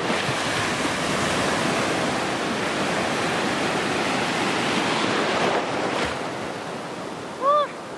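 Sea surf washing in a steady rush that eases off about six seconds in. A person gives one short call near the end.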